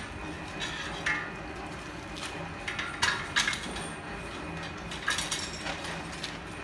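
Metallic clinks and clanks as a steel strip coil is handled and fitted onto a manual decoiler's shaft and frame: a handful of separate knocks, the loudest pair about three seconds in.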